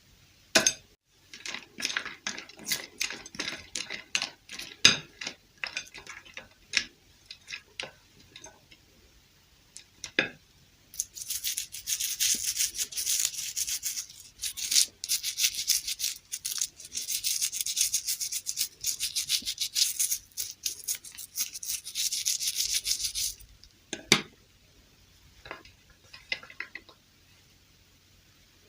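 Hands handling a doll and its packaging: a run of sharp clicks and taps, then about twelve seconds of fast, scratchy rubbing, and a single sharp click near the end.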